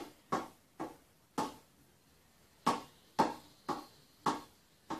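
A hand slapping the side of a ball spinning on the end of a rolling pin, keeping it spinning: about nine sharp slaps, with a pause of about a second in the middle.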